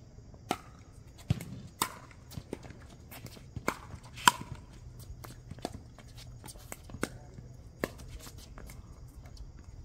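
Pickleball rally: paddles hitting a plastic pickleball with sharp pops about once a second, the loudest about four seconds in, some followed by a short ring.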